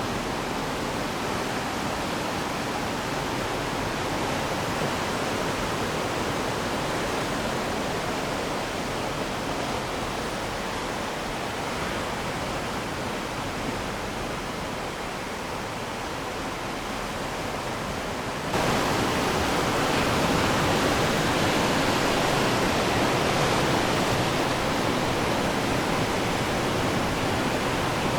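Ocean waves washing onto the shore as a steady rush of surf. About two-thirds of the way through, the rush jumps abruptly louder and brighter.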